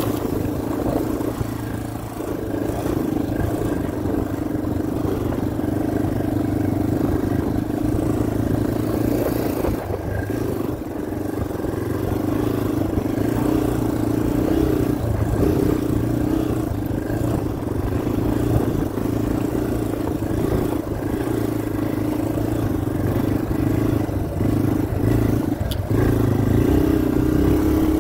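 Yamaha dirt bike's engine running steadily while riding over a dirt track, heard close up from the handlebars, with wind and some rattle over it.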